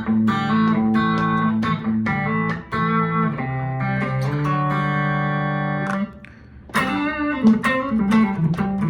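PRS SE NF3 electric guitar played on its bridge pickup: picked notes and chords, one chord left ringing for a couple of seconds about halfway through, a short break, then more picked notes.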